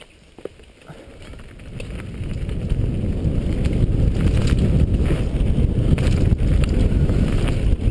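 Wind buffeting a GoPro camera's microphone, building over the first few seconds to a loud, steady rumble as the camera's rider picks up speed downhill on a mountain bike, with scattered clicks and rattles from riding over the rough dirt trail.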